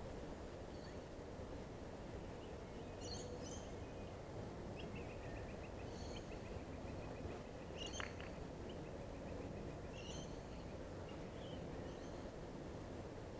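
Faint outdoor background: a steady low rumble with scattered high bird chirps and a brief rapid trill near the middle.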